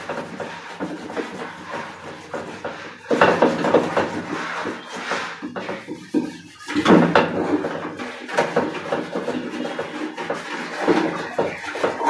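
Hands scrubbing and scraping grime inside a plastic toilet cistern, with scuffs and small knocks as the tank is handled. The scraping comes in louder spells a few seconds in and again later.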